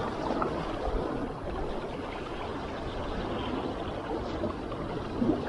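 Small sea waves washing against shoreline rocks, a steady wash of water.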